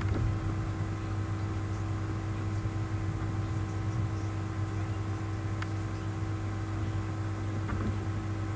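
Steady low electrical hum with a faint even hiss, the background noise of the recording setup.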